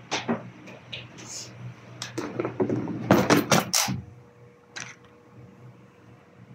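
Barber's tools being picked up and set down, clinking and knocking, with a quick cluster of sharp clatters about three seconds in. A fan hums steadily underneath.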